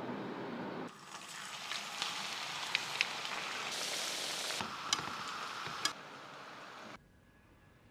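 Food sizzling as it fries in hot oil, a steady hiss with a few sharp clicks. The sound changes abruptly several times and falls to a faint hiss near the end.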